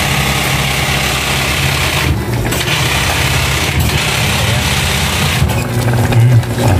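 Steady hiss of a gas burner and rapid bubbling of milkfish simmering in coconut milk in a stainless pot.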